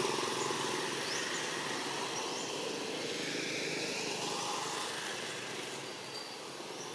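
Distant engine drone, slowly fading, with a few faint high chirps over it.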